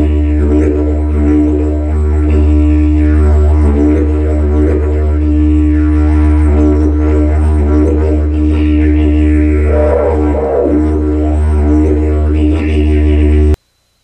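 Music: a steady, loud low drone with held overtones that slowly shift in colour, cutting off abruptly near the end.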